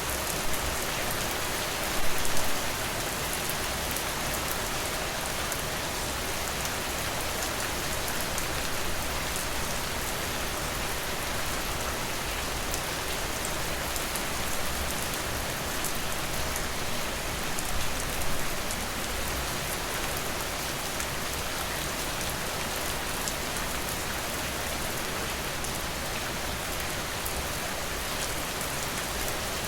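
Steady rain, with individual drops ticking in the dense hiss. It swells briefly louder about two seconds in and again about halfway through.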